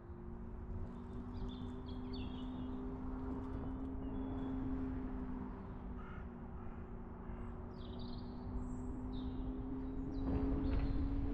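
Car engine and road noise while driving, the engine note holding fairly steady, with short bird calls over it. The noise grows a little louder near the end.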